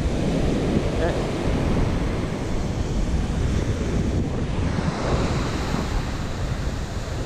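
Strong wind buffeting the microphone over the steady wash of surf breaking on the beach.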